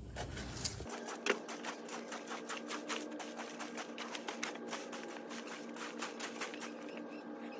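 Metal-tined leaf rake scraping and crackling through dry leaves, wood chips and dirt in quick repeated strokes, a dense run of small clicks and scratches. A faint steady hum sits underneath.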